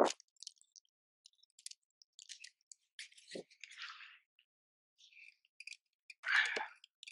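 Handling noise on a plastic fishing kayak as the rod is put down and the paddle taken up: scattered faint clicks and knocks, with one louder rush of noise about six seconds in.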